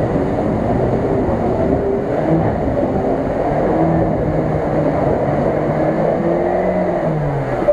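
Lada Niva engine revving up and down under load as the 4x4 pushes through icy flood water, with the wash and splashing of water and slush around it. The engine note drops away near the end.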